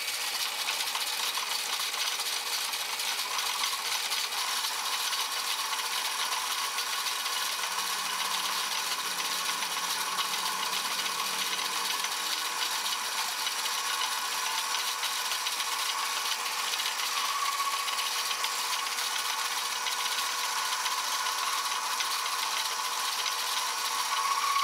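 Small metal lathe running steadily at low speed while a round-nose boring bar takes a light cut inside a steam engine cylinder, the carriage fed in by hand.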